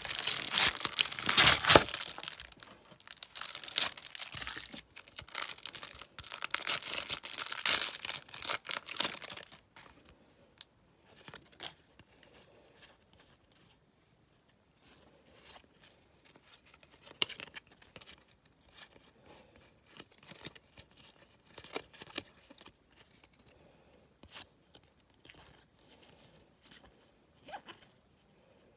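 Trading card packet wrapper being torn open and crinkled, a loud crackly rustle for about the first ten seconds. After that it gives way to soft, scattered ticks and light handling, like cards being sorted.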